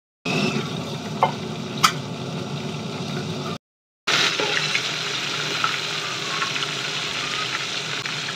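Corned beef and sliced onions sizzling in a frying pan while being stirred with a spatula. Two sharp clicks come about one and two seconds in, and the sound drops out briefly just before halfway.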